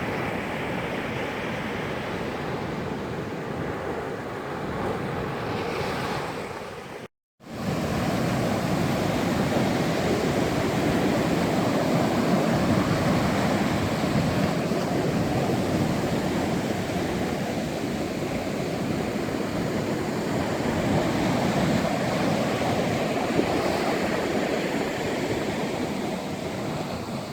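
Sea waves washing onto a beach in a continuous surf wash. About seven seconds in it cuts out to silence for half a second, then resumes a little louder.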